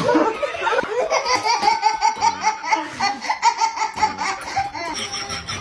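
A baby laughing hard: a long run of quick, rhythmic belly laughs, about three or four a second.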